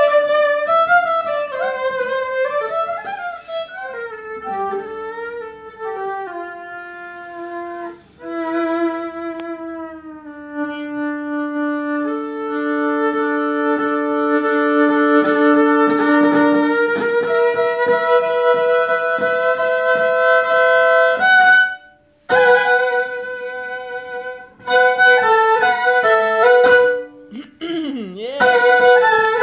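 Solo violin played live, moving from quick sliding phrases into long held notes that overlap, several sounding at once. The playing breaks off for a moment about two-thirds of the way through, and a fast downward swoop in pitch comes near the end.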